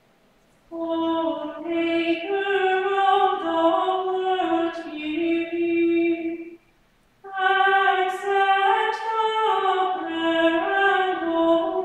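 Unaccompanied singing of a slow, stepwise liturgical chant in two long phrases, starting about a second in, with a short breath-pause just past halfway.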